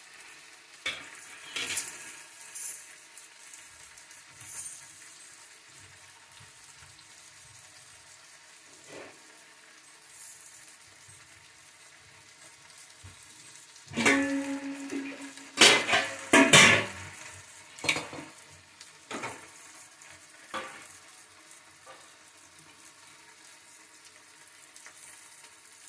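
Onion, ginger-garlic and tomato frying in oil in a pan with a faint steady sizzle, as a spatula stirs and knocks against the pan. A run of louder metal knocks and scrapes comes about halfway through, one ringing briefly.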